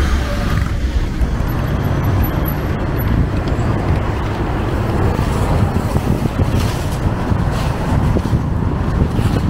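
Traffic on a town street: cars driving past, heard as a steady low rumble of engine and tyre noise.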